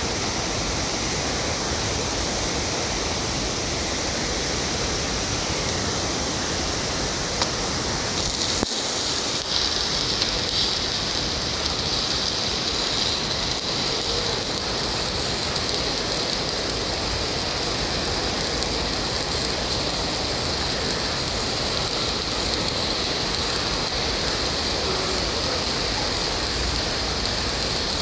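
Shielded metal arc (stick) welding on a carbon steel pipe joint. Over a steady background hiss, the arc strikes about eight or nine seconds in and then burns steadily with a hissing crackle.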